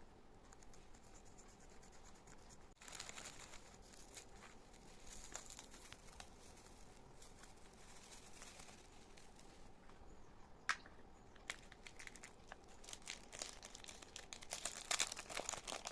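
Packaging crinkling and tearing as a packet is opened by hand, with scattered faint crackles, one sharp click about eleven seconds in, and denser, louder crinkling near the end.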